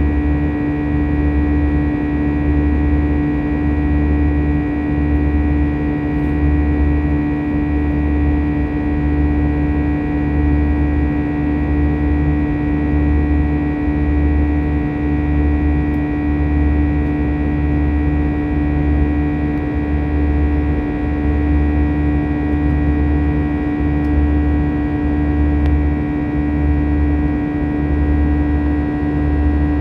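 Airbus A320's jet engines heard from inside the cabin during the climb after takeoff: a steady drone with a strong hum and a slow, regular throb about once a second underneath.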